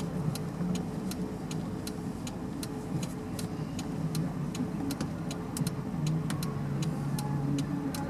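A steady low rumble with light, unevenly spaced ticking clicks, about three or four a second.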